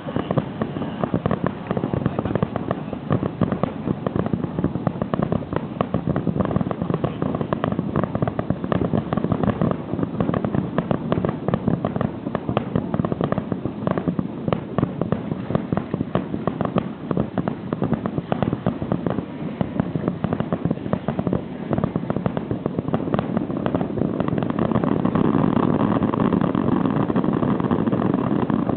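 Starmine fireworks barrage: a rapid, dense volley of shell bursts and crackling reports, many a second. Near the end the bangs merge into a thicker, louder continuous crackle.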